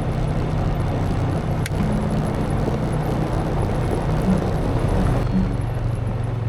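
Vehicle driving on a road: a steady low engine hum with road noise.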